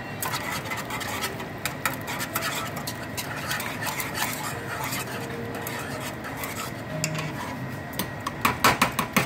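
A wire whisk beating mashed potatoes in a metal pot: continuous small metal clinks and scraping against the pot. Near the end comes a run of louder sharp clinks, several a second.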